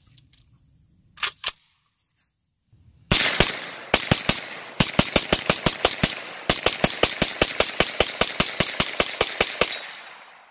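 Kalashnikov USA KP-9, a 9mm semi-automatic AK-style pistol, fired in a long rapid string of shots, several a second, starting about three seconds in and ending shortly before the end, the last report's echo dying away. Two short clicks come about a second in, before the shooting.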